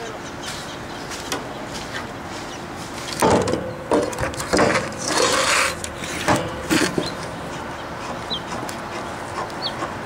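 Plywood board being handled on a work table: a run of wooden knocks and scraping rubs about three seconds in, lasting some four seconds.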